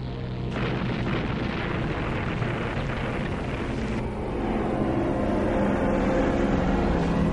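Four-engine propeller transport plane flying low past: a dense rumbling engine noise that comes in about half a second in and grows louder about four seconds in. Faint music runs underneath.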